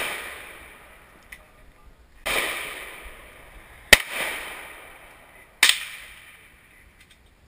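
Three gunshots at an open-air range: a duller report about two seconds in, then two sharp cracks about four and five and a half seconds in, each trailing off in a long echo.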